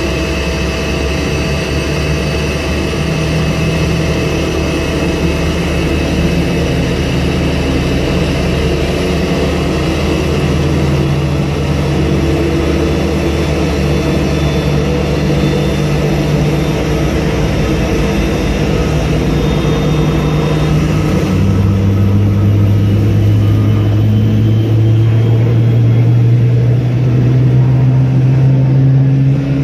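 Boeing 777 jet airliner being pushed back by a tow tractor: a steady jet turbine whine over a heavy low rumble. From about 21 s a deeper engine note rises slowly in pitch and grows louder.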